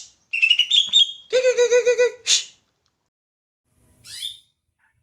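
Cucak hijau (green leafbird) singing: a run of quick, warbling phrases for about two seconds, then a single short rising note a little later.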